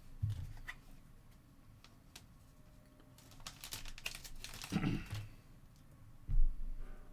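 Trading cards and pack wrappers handled on a table: light clicks and crinkling, with a dull thump about six seconds in.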